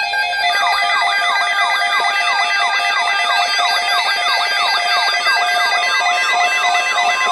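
Electronic siren sounds layered as an alert: a fast falling whoop repeating about three times a second and a higher wavering wail, over steady held synthesizer tones. They come in about half a second in and run on loudly.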